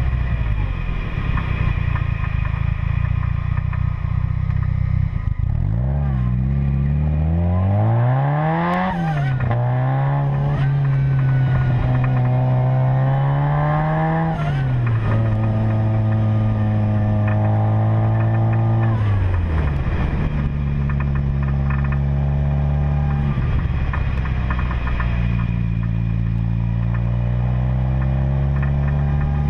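Car engine running while driving, speeding up with its pitch rising for a few seconds, then dropping back as it shifts, and cruising at steady revs with a couple more downward steps in pitch.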